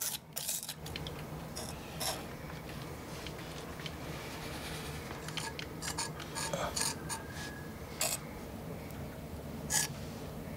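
Small metal spatula scraping and pressing gritty filler paste made from natural rock pigments, first on a glass palette and then into a broken section of a ceramic bowl. It comes as irregular short scrapes, which the restorer calls the sound of sand rubbing, over a steady low hum.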